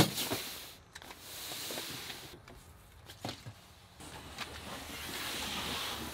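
A sharp knock, then rustling and scraping that swells twice, with a few light knocks, as a bag and a paddleboard are handled and slid into the back of a van.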